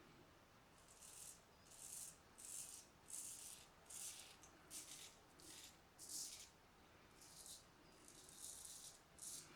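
Filarmonica 4/8 straight razor scraping through lathered stubble in short, crisp strokes, roughly one or two a second, on an against-the-grain pass.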